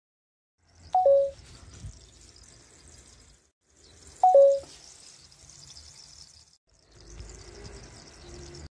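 A short two-note electronic chime, a higher tone dropping to a lower one, sounds twice about three seconds apart. Faint background hiss and hum follows each chime, and the audio cuts out briefly between the short clips.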